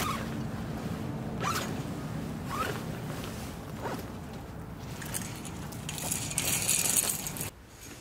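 Heavy tipi-tent fabric rustling and swishing as it is unfolded and dragged out over gravel, with several sharper swishes and the loudest rustling near the end. It cuts off sharply just before the end.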